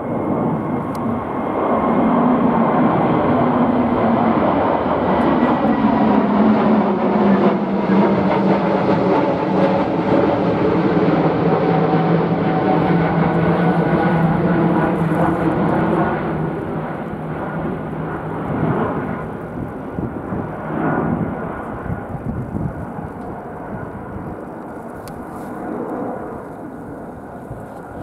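Jet airliner flying close past on landing approach; its engine noise swells, holds loud with a whine that slowly falls in pitch, then fades away in the second half. Gusty wind buffets the microphone.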